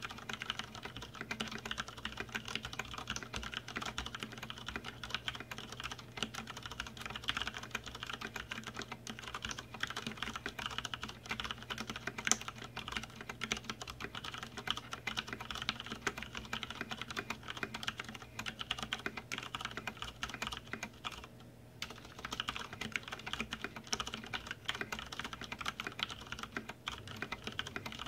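Fast, continuous typing on an iKBC F-104 mechanical keyboard with Cherry MX Brown switches and thick PBT keycaps, at around 75 words a minute, a dense run of key clacks. The typing breaks off briefly about three quarters of the way through.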